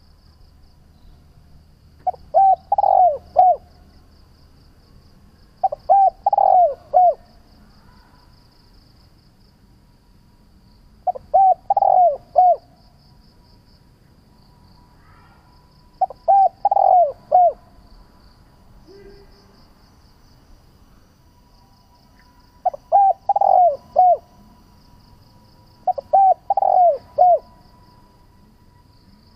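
Spotted dove cooing: six short phrases of about four coos each, repeated every few seconds, each coo dropping in pitch.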